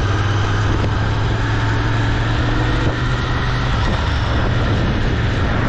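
Royal Enfield Interceptor 650's parallel-twin engine running steadily under way, a steady low hum beneath heavy wind and rain noise.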